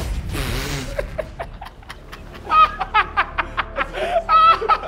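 A man laughing loudly in rapid bursts of 'ha-ha-ha' from about two and a half seconds in, after a brief rushing noise at the start.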